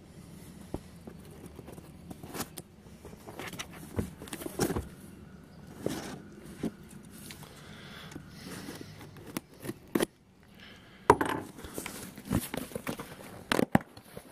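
Scissors snipping and cutting through packing tape on a cardboard box, in irregular sharp clicks and short scrapes, with the cardboard being handled. The loudest clicks come near the end.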